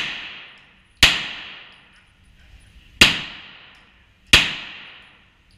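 Pistol shots fired on an indoor range, three of them spaced one to two seconds apart, each followed by a long echo off the concrete-block walls. The echo of a shot fired just before is still fading at the start.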